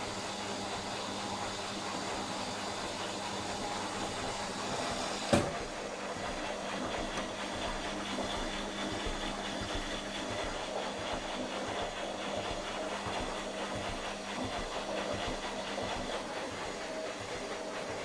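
Indesit front-loading washing machine running, the drum turning with a steady motor hum and rumble. A single sharp knock comes about five seconds in.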